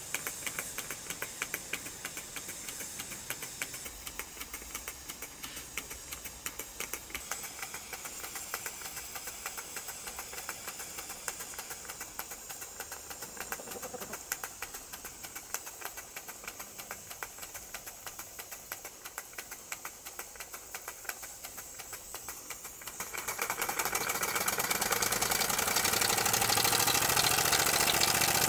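Model steam beam engine running on live steam: a rapid, even ticking from its cylinder and valve gear. About 23 seconds in it grows louder, with a steady hiss of steam, as the engine runs faster.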